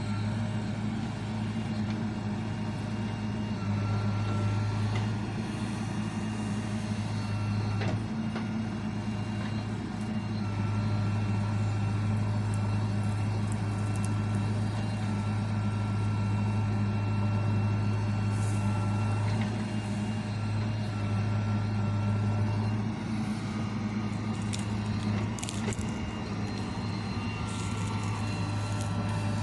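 Diesel engine of a JCB 3DX Xtra backhoe loader running steadily under working load, with a thin whine that comes and goes and a few sharp clanks in the second half.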